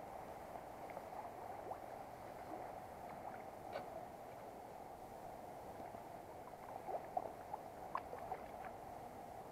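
Shallow stream water flowing and gurgling steadily. There are a few small splashes about four seconds in, and a short run of them from about seven to eight and a half seconds in, from a hand and a small trout at the water's surface.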